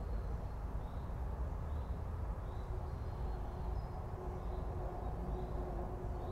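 Outdoor park ambience: a steady low rumble of wind on the microphone or distant traffic, with a small bird repeating a short high call about once a second. A faint steady hum, as of a distant vehicle or train, comes in about halfway.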